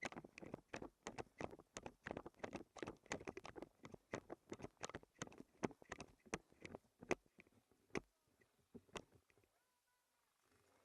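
Footsteps crunching on the ground, a quick irregular run of crunches and clicks several a second that thins to a few single clicks after about seven seconds and then stops.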